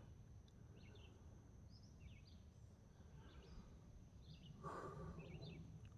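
Near silence outdoors, with a bird's faint short chirps repeating about twice a second.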